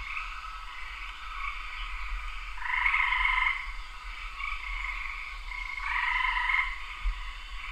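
A chorus of frogs calling, with two louder trills of about a second each, one about three seconds in and one about six seconds in.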